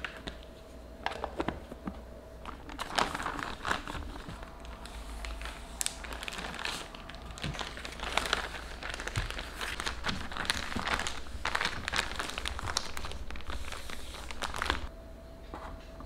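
Thin plastic bag crinkling and rustling in irregular handfuls, along with a paper towel, as a piece of fruit is wrapped in them.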